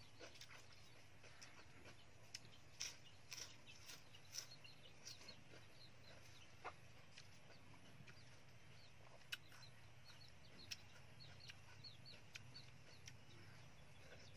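Faint, scattered crunches and mouth clicks of someone chewing crispy banh chhev pancake wrapped in fresh lettuce, over a low steady background hum. The crunches are densest about three to four seconds in.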